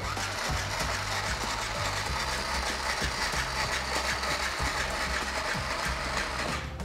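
Small battery-powered toy sewing machine running steadily, its needle mechanism clattering rapidly as it stitches cloth.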